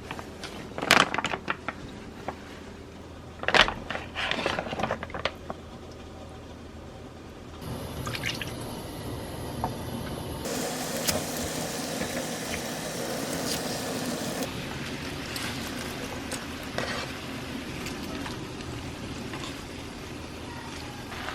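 A few sharp clattering knocks, like dishes or utensils, then a steady rush of water or liquid running, louder for a few seconds in the middle.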